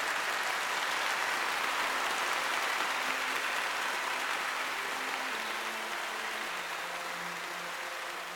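Audience applause, a steady clapping that slowly eases off. About halfway through, soft held music notes begin underneath it.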